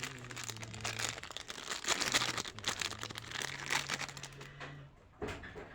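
Plastic and foil candy wrappers crinkling and rustling as they are handled, in a dense run of crackles that is loudest about two seconds in, with one more sharp crackle near the end.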